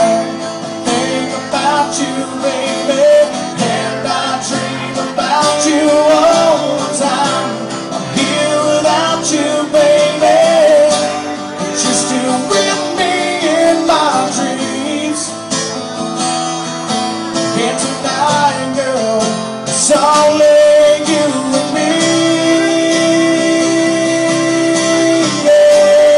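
Live country music with acoustic guitar and a melody line that bends in pitch, ending in long held notes over the last few seconds.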